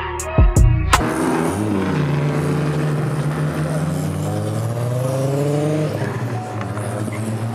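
A hip-hop beat with a few heavy drum hits, cut off about a second in by a car's engine pulling away. The engine note dips, holds, then climbs steadily as it accelerates and eases off near the end.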